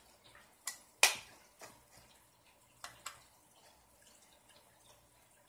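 Sharp clicks and light knocks of small RC car parts and tools being handled: five or so, the loudest about a second in, a pair near three seconds in.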